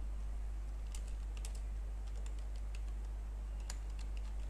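Computer keyboard typing: irregular keystrokes in short clusters, over a steady low hum.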